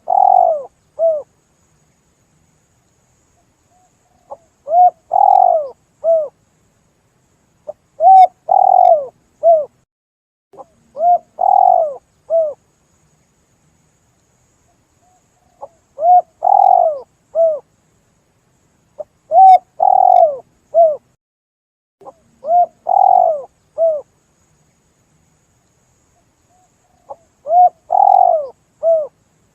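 Spotted dove (tekukur) cooing: about eight repeated call phrases, each a short lead note followed by a longer rising-and-falling coo and a shorter closing coo, a few seconds apart with silence between. A clear call used to lure spotted doves.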